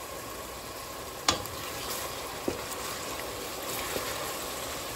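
Chopped onion and crushed tomatoes frying in vegetable oil in a steel pot with a steady sizzle, stirred with a wooden spoon. A few sharp knocks of the spoon against the pot, the loudest about a second in.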